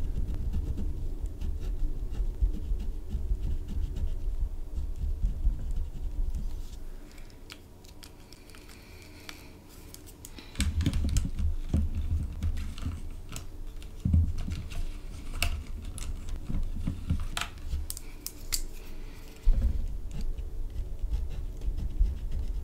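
Gel pen scratching back and forth on paper as small colour swatches are scribbled in, then a few seconds of quiet. Plastic pens click and rattle in a clear plastic case as they are handled, then a sharp tap, and the scribbling on paper starts again.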